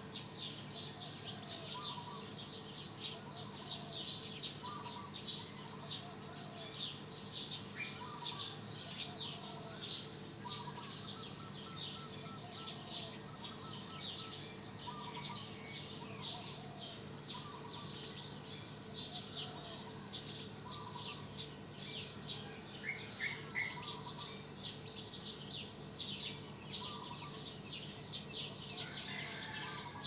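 Dawn chorus of many small birds chirping continuously in high, quick notes, with one bird repeating a short lower call every second or two and a brief rapid trill near the end, over a steady low hum.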